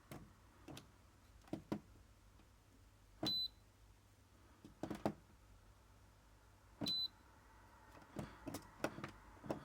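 MeacoDry Arete 12L dehumidifier's control panel giving two short high beeps, about three and a half seconds apart, among several clicks and taps of its buttons being pressed. The unit is one that won't turn on.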